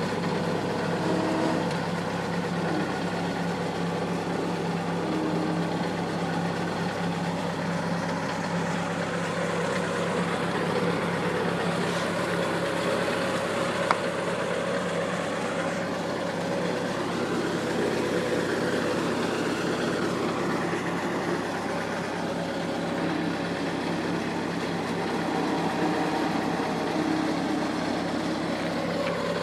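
Argo amphibious ATV's engine running steadily, with one sharp click about fourteen seconds in.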